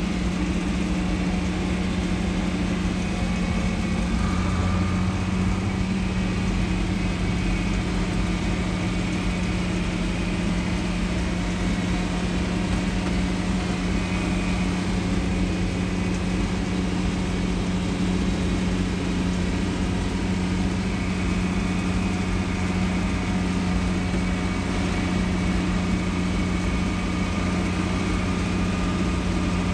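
Farm tractor's engine running steadily under way at an even pitch, heard from inside the cab.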